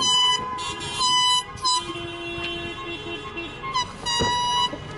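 A horn sounded in repeated blasts of a third of a second to a second each, a bright, reedy tone coming on and off several times. A couple of short knocks are heard between the blasts.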